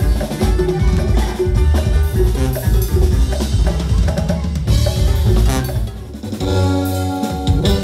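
Norteño-style band music without singing: button accordion, guitars, bass and a drum kit playing an instrumental passage. About six seconds in the music thins out briefly, then held notes follow.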